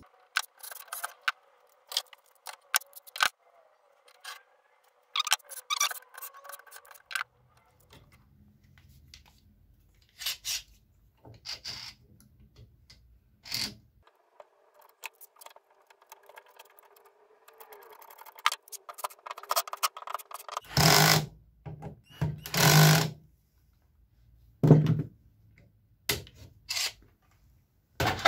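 Clicks, knocks and scrapes of metal and wooden parts being handled and fitted by hand on a homemade lathe's carriage and rails, with bar clamps being put on. Two louder scraping bursts come about three quarters of the way through.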